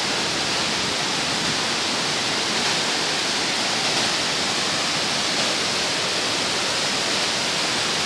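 Wachirathan Waterfall in heavy rainy-season flow, swollen after days of rain: a steady, unbroken rush of falling water.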